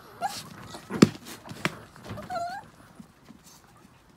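Chihuahuas moving about on a tarp: two sharp clicks about a second in and half a second later, and a short, high whine from one of the dogs about halfway, over soft rustling.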